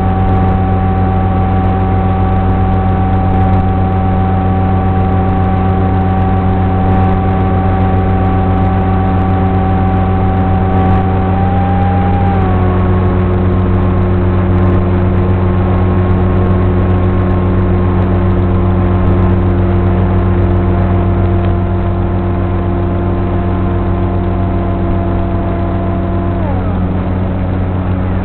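Electric pusher motor and propeller of an FPV flying wing running steadily, a buzzing whine over a strong low hum. Its pitch steps down slightly about halfway through and again near the end.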